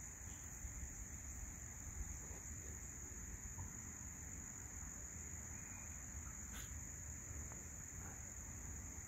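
Crickets chirping in a steady, high-pitched chorus, over a low rumble.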